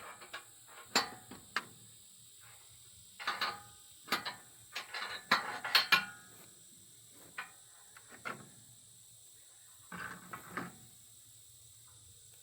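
Intermittent metal clanks and clicks of tools working on a steel sawmill frame while it is being adjusted to level, some hits ringing briefly. They come in clusters, the busiest around the middle.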